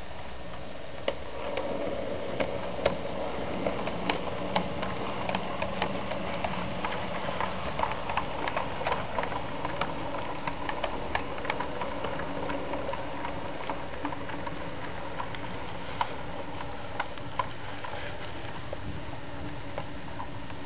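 HO scale model train rolling along the track: the small metal wheels of the freight cars click irregularly over the rail joints, most thickly around the middle, over a steady whirring hum from the SW9 switcher's electric motor and gears.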